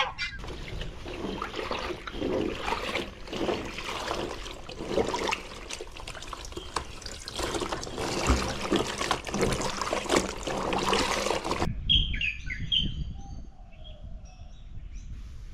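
Tap water running into a plastic basin while clothes are kneaded and scrubbed in it by hand, with splashing and sloshing. The water cuts off abruptly about twelve seconds in, leaving birds chirping.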